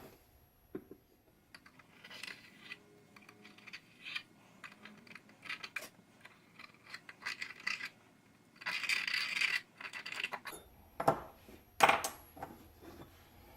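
Steel scribing tool scratching the outline of a knife template into a Damascus steel billet: short scrapes with light metallic clicks and taps, and a longer scratch about nine seconds in.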